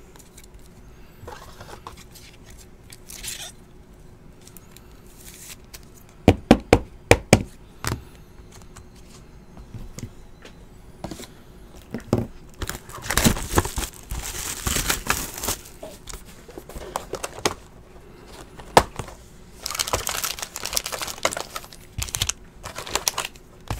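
Trading cards and hard plastic top loaders being handled on a tabletop. A quick run of sharp plastic clicks and taps comes about six to eight seconds in, then two stretches of crinkling and rustling around thirteen and twenty seconds in.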